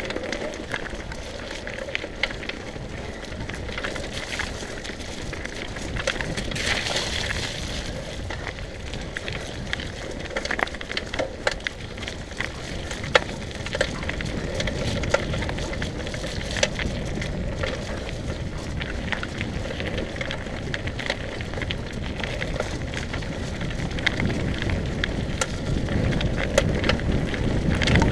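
Mountain bike riding fast down a wet dirt trail: the tyres crackle and rumble over the ground, with frequent small rattles and clicks from the bike over bumps, getting louder near the end.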